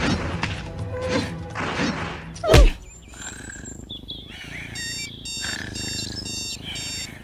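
Music ends on a deep thump, then a digital alarm clock starts beeping in short repeated bursts a little under twice a second, quiet at first: the wake-up alarm going off.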